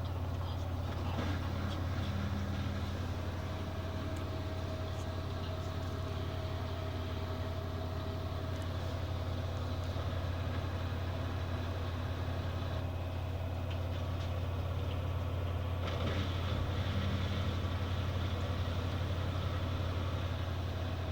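LG F14B3PDS7 direct-drive front-loading washing machine spinning at 1000 rpm, a steady low hum.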